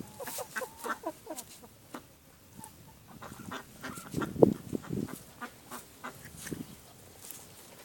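Flock of Kalimero broiler chickens clucking and calling right at the microphone, in two bouts with a lull between them and one loud call about four and a half seconds in.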